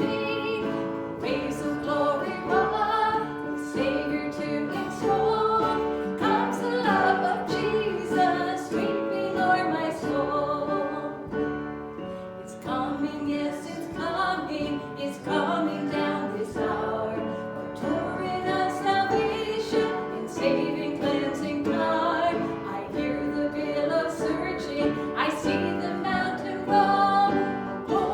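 A worship song in a church service: singing with instrumental accompaniment.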